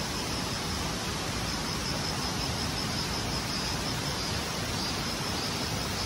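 Steady outdoor hiss with a thin, high insect trill pulsing evenly through it.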